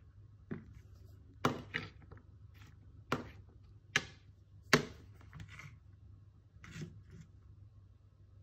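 Sharp, irregular knocks on a plastic cutting board, about seven spread over several seconds with the loudest near the middle. They are too uneven for steady chopping.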